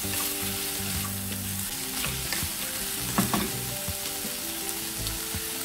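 Chicken pieces sizzling in hot oil with garlic, ginger and onion as they sear in a granite-coated pot, stirred with a wooden spatula that knocks against the pot a few times.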